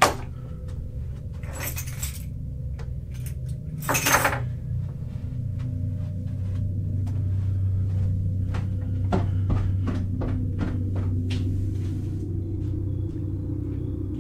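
A low steady rumbling drone, stronger from about six seconds in, with scattered clicks and knocks and two short bursts of rustling noise near two and four seconds in.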